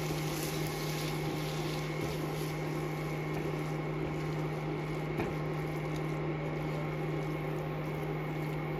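Steady hum of an induction cooker running, over a low sizzle of chopped onions frying in oil as a silicone spatula stirs them in a nonstick pan; one light tap about five seconds in.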